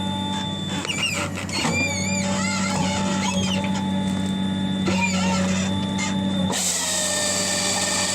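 Machinery running with a steady low hum and wavering whines that rise and fall in pitch; about six and a half seconds in, a harsher hiss with a steady tone takes over for about two seconds.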